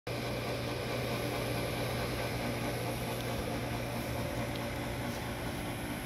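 Raypak Crosswind 65-I electric pool heat pump running: a steady low hum under an even rush of fan air.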